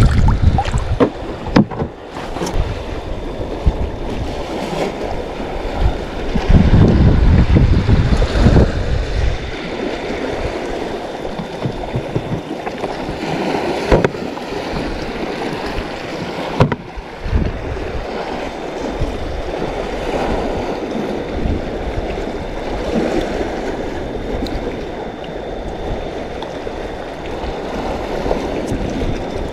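Sea water lapping and slapping against a kayak's hull, with wind buffeting the microphone, heaviest for a few seconds around seven seconds in. A few sharp knocks stand out.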